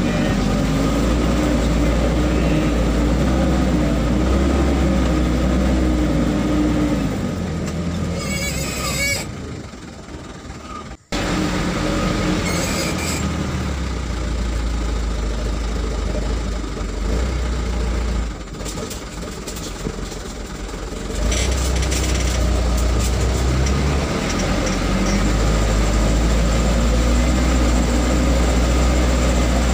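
Vehicle engine running while driving slowly over a rough dirt track, heard from inside the cab as a steady low rumble. Its note rises and then falls over the first several seconds and drops away briefly, then the sound breaks off suddenly and the rumble carries on, with some rattling.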